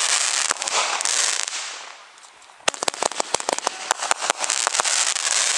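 Multi-shot fireworks cake, many mortar tubes on one fuse, firing. A dense crackling hiss dies away about two seconds in, then a fresh run of rapid sharp pops and crackling starts and fades near the end.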